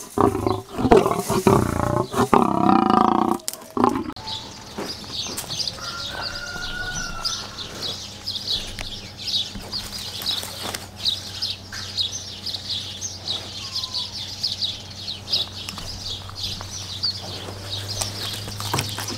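A male lion growling at close range: a loud, deep growl that breaks off about three and a half seconds in. After it, rapid high chirping of birds goes on in the background.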